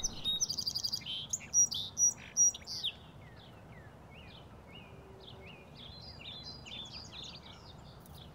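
Songbirds chirping and singing: loud, quick chirps and a fast trill for about the first three seconds, then fainter scattered chirps.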